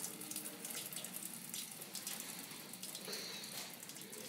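Water running with a steady, faint splashing hiss.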